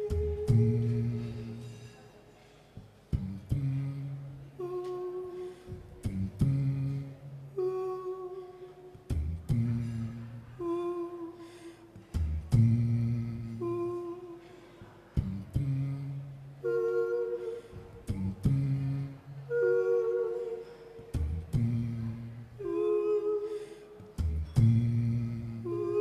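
Layered vocal loop: a hummed low bass line and held sung notes built up from one man's voice, repeating about every three seconds, with sharp percussive clicks marking the beat.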